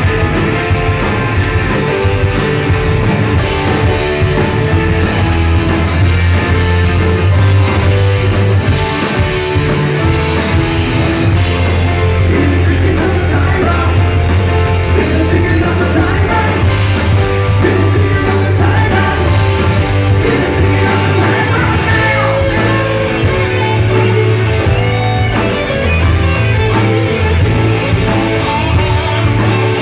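Live rock band playing, with a lead singer over electric guitars, keyboards, bass and drums.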